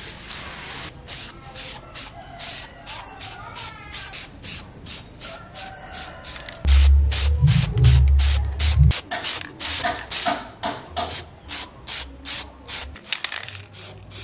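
Aerosol spray-paint can hissing in many short bursts, two to three a second, with a deep rumble lasting about two seconds near the middle.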